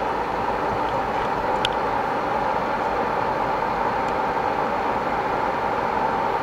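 Cooling fan of a GW Instek GPE-2323 (RS Pro RPE-2323) bench power supply running fast and really loud, a steady rushing noise with a constant tone in it. It is driven at almost its full 24 volts while the supply is loaded at 3.2 amps on each channel. A faint click comes a little under two seconds in.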